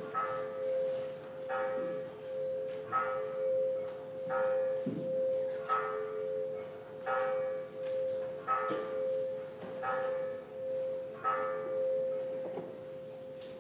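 Church bell ringing before the service, about ten strokes roughly a second and a half apart, its hum sounding on between strokes. The strokes stop near the end and the ringing dies away.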